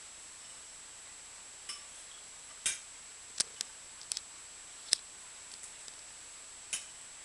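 Scattered sharp clicks and taps, about ten over several seconds, as a Border Terrier and a tabby kitten play-fight. A faint, steady, high-pitched whine runs underneath.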